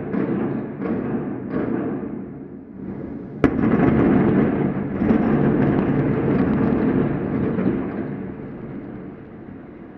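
Explosive building demolition: a few sharp bangs, then a loud crack about three and a half seconds in, followed by the long rumble of the collapse, which fades away over several seconds.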